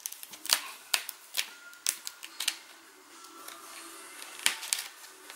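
A plastic pry tool levering a laptop's plastic screen bezel away, making a run of sharp, uneven plastic clicks and snaps. The clicks come thickly for the first couple of seconds, pause, then come again as a short cluster near the end.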